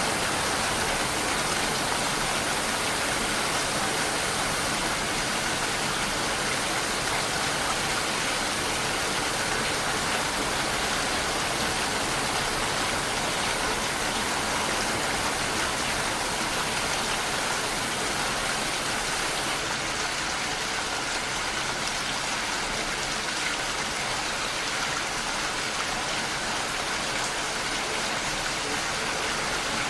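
Steady rain falling, an even continuous hiss with no single drops standing out. The highest part of the hiss thins out about twenty seconds in.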